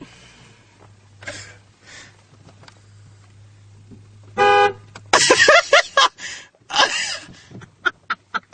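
A car horn honks once, a short toot of about half a second, about four and a half seconds in, followed by loud voices.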